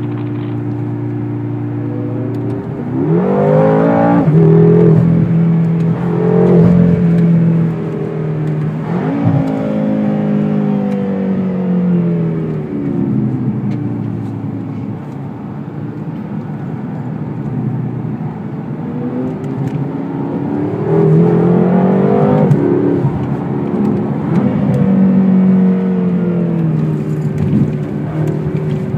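Car engine heard from inside the cabin, pulling hard through the gears: the pitch climbs steeply and drops back at each shift, then falls away as the car slows. The same hard acceleration comes again about three-quarters of the way in.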